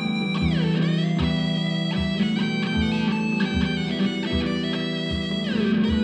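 Music: electric guitar over a steady low beat, the guitar sliding down in pitch twice.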